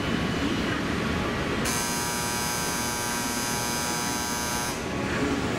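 An electric buzzer sounds for about three seconds, starting about two seconds in and cutting off sharply. Under it is the steady hum of a JR Central 211 series electric train standing at the platform.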